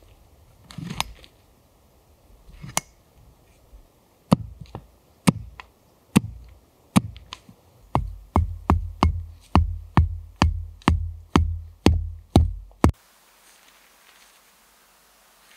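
Hatchet striking wood. It starts as scattered sharp knocks, then turns into a fast run of about a dozen blows, roughly three a second, each with a dull thud, as a wooden stake is driven into the ground. The knocking stops abruptly a few seconds before the end.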